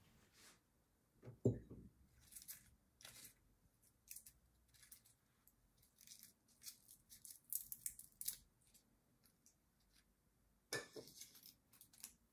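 Papery crow garlic (wild onion) bulbil heads rustling as they are pulled apart by hand, in many short, crisp bursts, with a denser burst near the end. A soft thump about a second and a half in.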